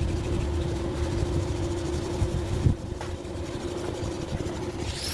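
A machine running steadily, a constant hum over a low rumble, with a single short knock about two and a half seconds in.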